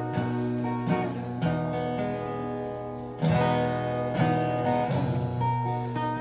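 Acoustic-electric guitar strummed without singing: a run of chords, each struck sharply about once a second and left to ring.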